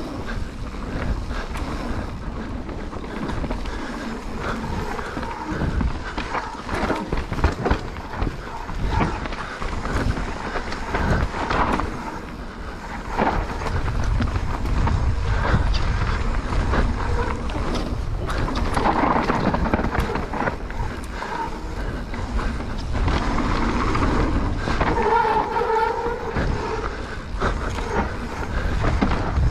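Mountain bike riding down a rough dirt trail: rattles and knocks of the bike over the ground, with wind rumbling on the microphone.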